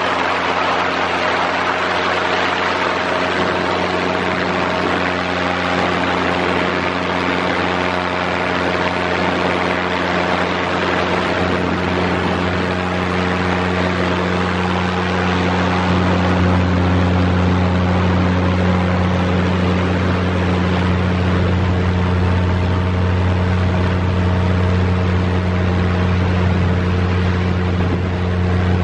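Ultralight aircraft's engine and propeller running steadily in flight, a low, even note under a rushing of air. The engine note grows a little louder about halfway through.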